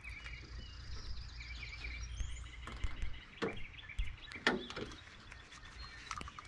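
Birds chirping outdoors, with a few sharp knocks and clanks from the sheet-metal fascia strip being handled and set against the roof edge, and a low rumble that dies away about halfway through.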